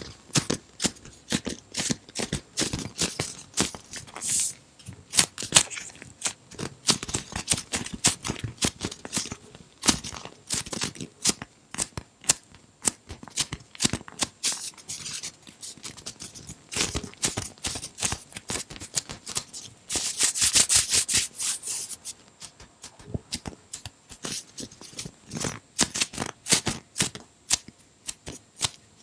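Hands squeezing and kneading a giant foam squishy shaped like an ice cream cone, right up against the microphone: a run of irregular crackles, scratches and soft squishes, with a denser stretch of crackling about twenty seconds in.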